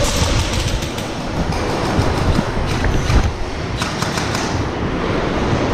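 Movement noise on a body-worn GoPro: a steady rumbling rustle with a few scattered knocks as the wearer moves.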